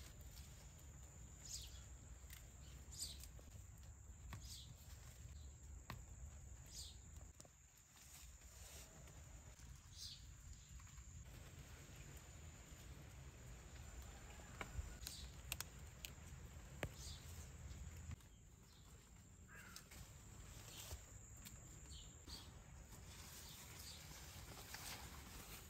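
Quiet rustling of tomato plant leaves and scattered soft snaps and clicks as ripe tomatoes are picked off the vine by hand, over a low steady rumble.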